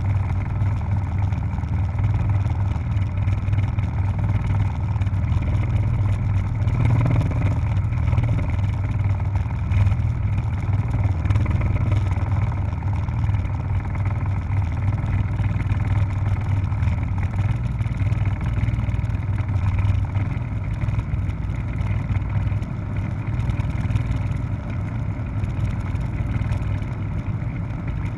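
Helicopter in flight, its engine and rotor making a loud, steady drone.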